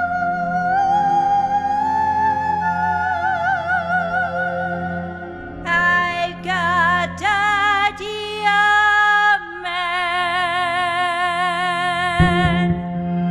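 Slow, atmospheric music: a steady low drone under a wordless high voice that wavers and slides slowly upward. About six seconds in, the voice moves into a string of strong held notes with vibrato, and a deeper note enters near the end.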